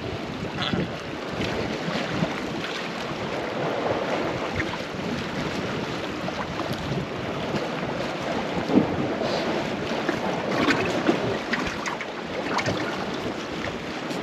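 Sea waves washing against rocks, with wind buffeting the microphone and a few short knocks.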